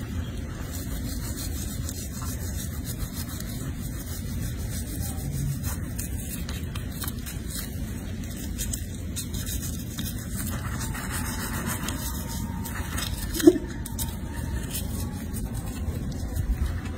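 Toothbrush scrubbing a baby monkey's teeth: a steady rubbing over a low rumble, with one brief squeak a little over three-quarters of the way through.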